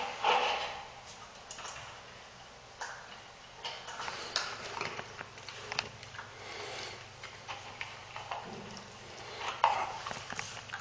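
A dog eating from a bowl: scattered light clicks and ticks of teeth and food against the bowl, with a few short rustling bursts.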